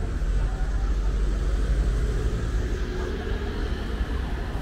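A car's low engine rumble amid steady city street noise.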